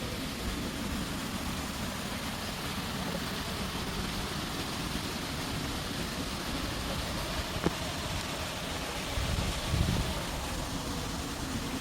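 Steady rain hiss, with one sharp click about seven and a half seconds in and a short low thump near ten seconds.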